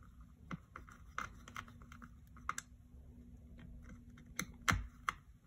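Small irregular clicks and taps of a precision screwdriver and tiny screws against the battery and case of an opened MacBook Pro while the battery screws are being fitted, with the loudest knock near the end.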